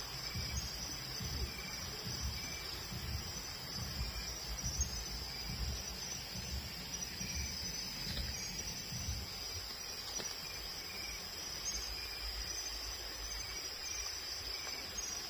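Night chorus of crickets: a steady high-pitched trill, with a short chirp repeating about every half second. Low rumbling handling noise lies under it and fades out about ten seconds in.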